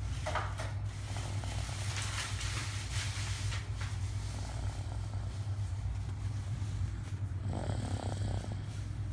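Snoring.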